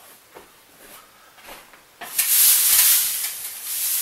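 Thin plastic sheeting rustling as it is handled and shaken out. It starts as faint scattered rustles, then turns into loud, dense crinkling about halfway through.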